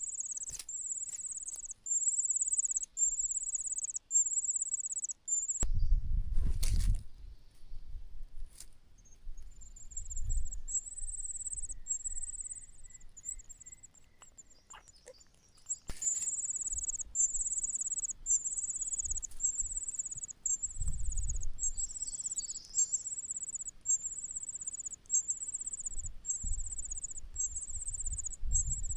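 Cuckoo chick begging: a rapid, high-pitched, insect-like trill repeated in runs of about half a second. About halfway through it fades and stops for a couple of seconds, then starts again loudly.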